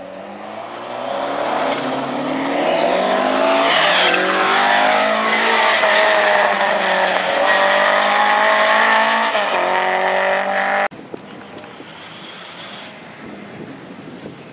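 Mk2 Ford Escort rally car's engine revving hard under acceleration, its pitch climbing and dropping with gear changes as it drives past. The sound cuts off suddenly about eleven seconds in, leaving a fainter, more distant engine note.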